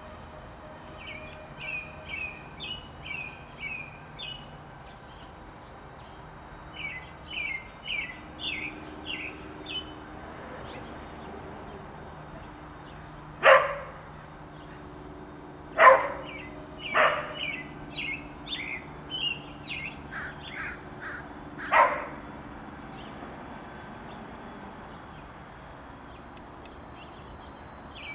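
American robins singing in runs of short, quick whistled phrases, in several bouts. A dog barks four single loud barks, spread over about eight seconds around the middle.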